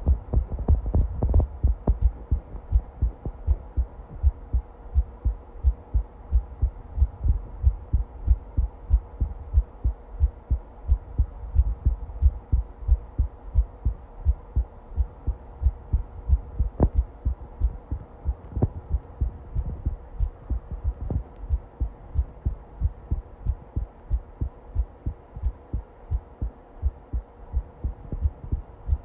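A person's heartbeat: low thumps in a steady, even rhythm, with a faint steady hum underneath.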